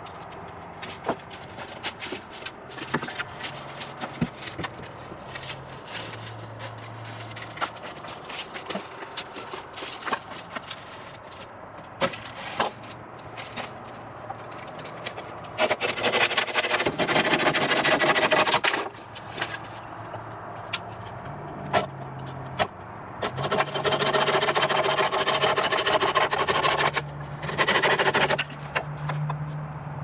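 A portable sawmill's engine runs while oak is being milled, with scattered knocks and clatter. Twice it grows much louder and harsher for several seconds: once just past the middle, and again for about five seconds near the end.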